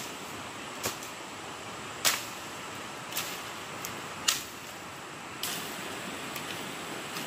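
Six sharp strikes or knocks at uneven gaps of about a second, over a steady hiss.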